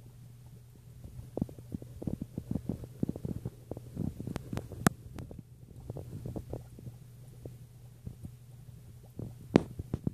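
A steady low hum under irregular low rumbling knocks, with two sharp clicks, about five and nine and a half seconds in.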